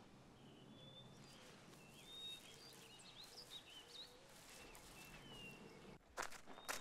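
Faint outdoor ambience with birds chirping now and then. Near the end, a few footsteps crunch on gravel.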